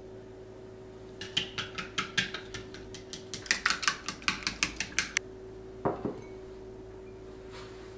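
Wooden chopsticks clicking against a glass mixing bowl as beaten egg and dashi stock are stirred, a quick run of light clinks at about four or five a second lasting about four seconds. It stops and is followed by a single knock about six seconds in.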